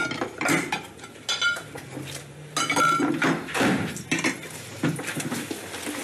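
Dishes and cutlery clinking and clattering as food is served from a metal pan onto plates and plates are set down on a table: irregular sharp clinks and knocks, some of them ringing briefly.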